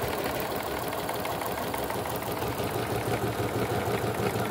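Juki HZL-009 computerized sewing machine running steadily while stitching decorative patterns, its needle mechanism making an even, rapid mechanical clatter.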